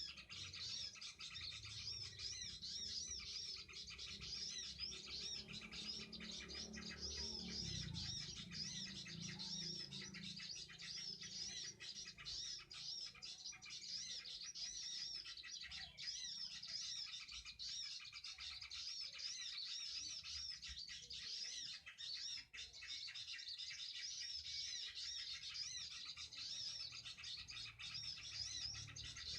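Small birds chirping: a fast, unbroken run of high, repeated rising-and-falling notes.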